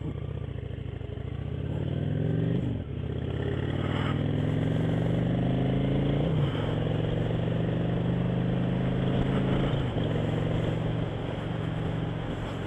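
Cruiser motorcycle engine accelerating away and shifting up through the gears, heard from the rider's helmet: its pitch climbs, drops at upshifts about three, six and a half and ten seconds in, then holds steady at cruising speed.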